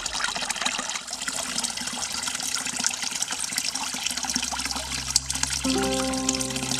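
Water pouring from a stone fountain spout and splashing steadily into a stone trough. Music starts softly near the end.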